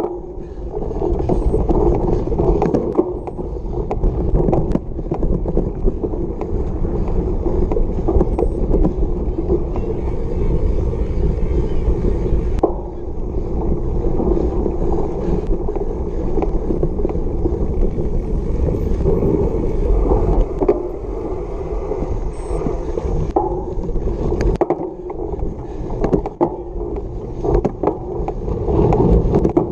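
Cyclocross bike ridden at race pace over bumpy grass and dirt: a steady rolling rumble of tyres and frame, broken by sharp knocks and rattles over bumps.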